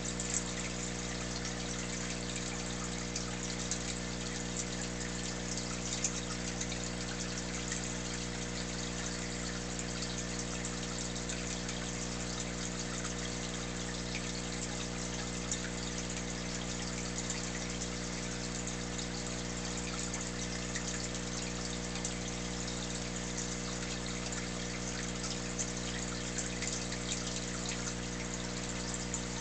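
Aquarium equipment running steadily: a low electric hum from the air pump under a constant fizz of bubbles and trickling water from the air-driven sponge filter, with scattered small pops.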